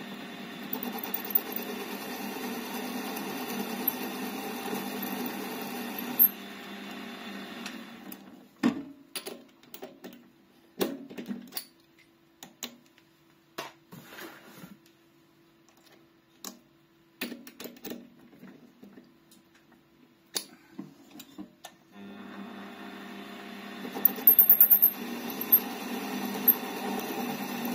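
Small metal lathe running with the cutting tool working a groove in a small part. It stops about eight seconds in, and a series of separate clicks and knocks follows while the part is changed in the chuck over a faint steady hum. The lathe starts again later, with a loud high squeal of cutting just before the end.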